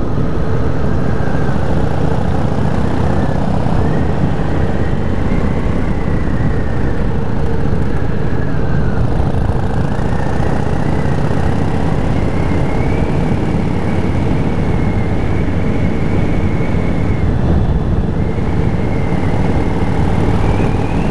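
Cruiser motorcycle engine running steadily while riding, heard from the rider's seat. Its pitch wavers gently and rises near the end.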